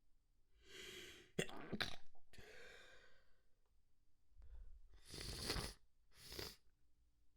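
A person sneezing: a drawn-in breath, then a sharp double burst just before two seconds in, trailing off into a breathy exhale. Two more rushing breaths or sniffs follow around five and six seconds in.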